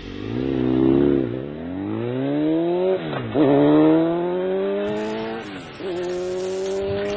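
A vehicle engine accelerating through the gears: its pitch climbs, drops sharply at a shift about three seconds in and again near six seconds, then climbs again.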